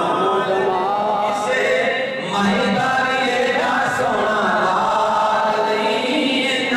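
A man singing a naat unaccompanied into a microphone, in long held, wavering notes with a short breath about two seconds in.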